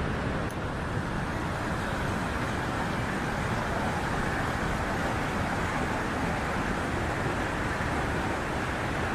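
Swollen, muddy river in spate rushing over rocks: a steady, loud rush of water.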